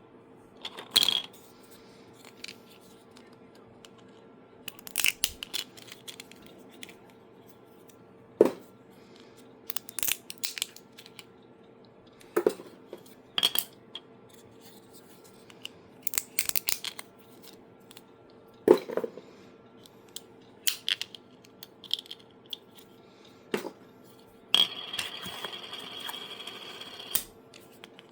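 Sharp plastic clicks and clacks from a 3D-printed clicker being worked by hand, some single and some in quick runs, over a faint steady hum. Near the end comes a rasping buzz about two and a half seconds long.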